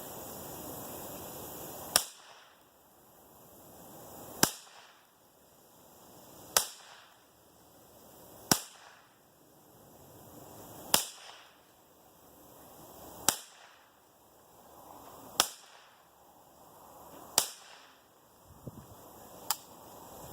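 Ruger 10/22 .22 rifle fired nine times at a slow, steady pace, a sharp crack about every two seconds.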